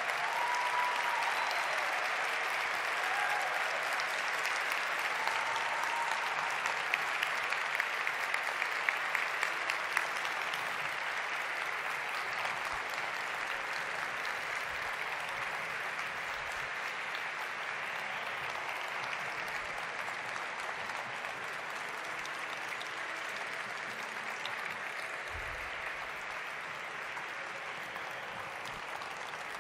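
A large arena audience applauding steadily, easing off slowly over the half minute, with a run of sharper, nearer claps about eight seconds in.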